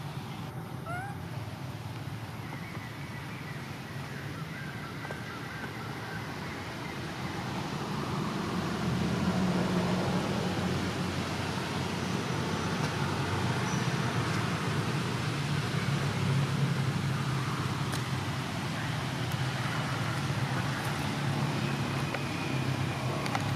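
Steady low motor hum, like nearby road traffic or an idling engine, growing louder about eight seconds in. A couple of faint short squeaks can be heard near the start.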